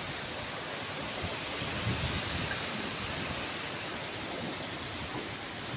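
Steady heavy rain in strong gusting wind, with wind buffeting the microphone in low rumbles.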